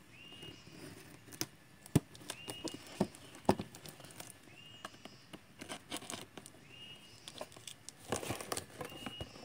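Cardboard box with clear packing tape being handled and picked open by hand: scattered sharp taps and clicks of fingers and nails on the cardboard, with tape crackling as it is peeled near the end.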